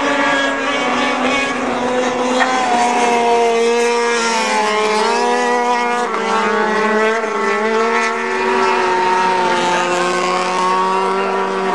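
Several racing snowmobiles' two-stroke engines running at high revs together, each at its own pitch. The pitches shift and cross each other as the sleds pass, most of all around the middle.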